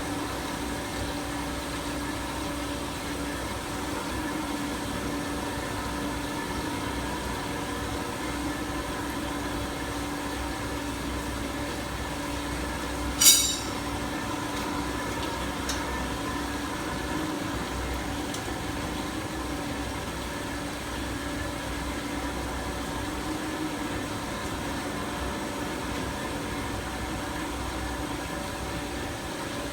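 Fully automatic band saw machine running with a steady hum made of several constant tones. A single sharp knock sounds about 13 seconds in.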